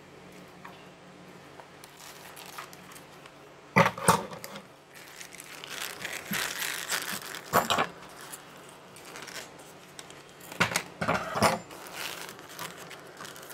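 Plastic toy packaging being crinkled and torn open by hand, in several sharp bursts about 4, 7.5 and 11 seconds in.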